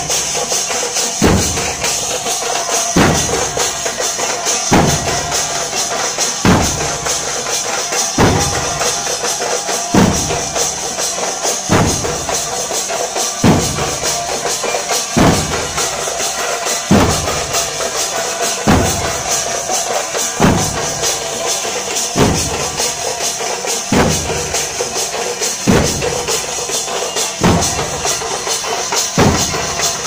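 A street drum troupe playing large double-headed drums with sticks. A heavy low beat lands about every second and three-quarters, with quick drum strokes in between, over steady high metallic jingling like cymbals or jingles.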